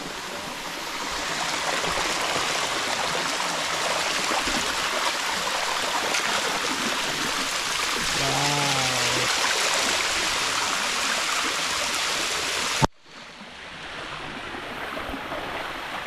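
Rushing water of a waterfall and its stream, a steady hiss. About thirteen seconds in there is a sharp click and the sound cuts off abruptly, then the water comes back quieter.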